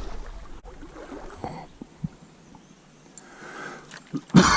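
Faint running stream water, then near the end a short, loud vocal sound from the man, like a throat-clearing grunt.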